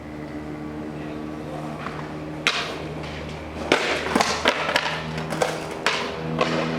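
Skateboard impacts, the board's tail snapping and wheels landing on concrete: one about two and a half seconds in, then a quick string of clacks in the second half. Background music with held notes runs underneath.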